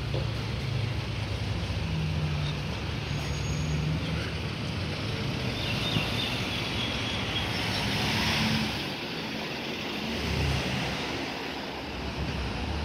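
Town street traffic: car engines running on the road, with one vehicle passing close by about eight seconds in.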